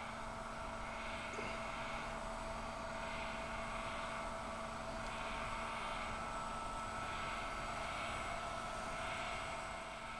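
Laboratory cryostat machinery running steadily: a hum with several fixed tones under a soft hiss that swells and fades about once a second.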